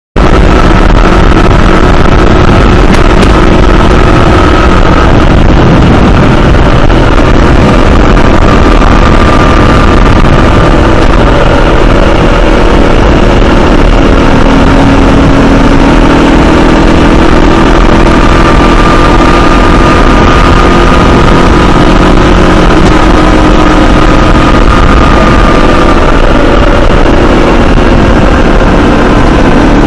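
Honda CBR500R parallel-twin motorcycle engine running at a steady cruising speed, its note drifting slowly up and down, under constant loud wind rush on a bike-mounted camera.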